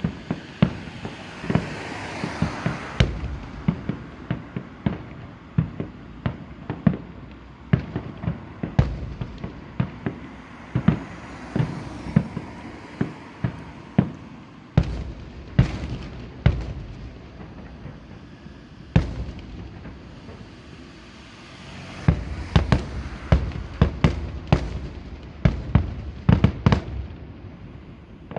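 Aerial fireworks going off in a rapid, irregular series of sharp bangs and booms, with rumbling echo between them; the bursts come thickest near the end.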